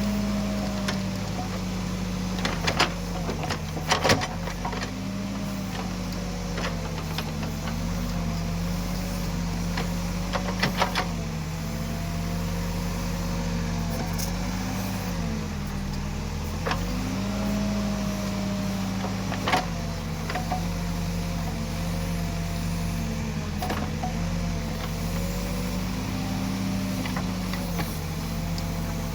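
Escorts Digmax backhoe loader's diesel engine running steadily while it works, its pitch rising and falling every few seconds. A few sharp knocks stand out, the loudest about 4 seconds in and again near 20 seconds.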